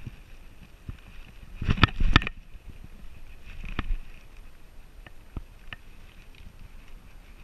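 Rubbing and knocking of a camera strapped to a Border Collie's harness as the dog moves: a cluster of louder knocks about two seconds in, then scattered light clicks.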